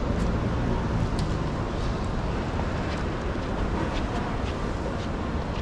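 City street traffic noise: a steady wash of passing vehicles with a low engine rumble that fades after the first second or so, and faint clicks scattered through.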